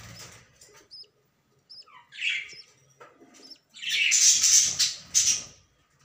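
Budgerigars calling: a few short high chirps, a short raspy call about two seconds in, then a louder, longer harsh raspy call from about four seconds in.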